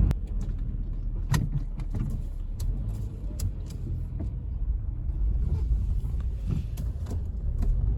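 Car cabin road noise: a steady low rumble from the engine and tyres, with scattered sharp clicks and knocks.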